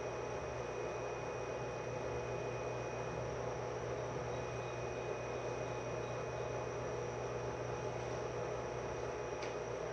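Steady hum and whir inside a stopped 105 series electric train car, its onboard equipment running while the train stands at the platform, with a thin high whine over a low hum. There is a brief faint click near the end.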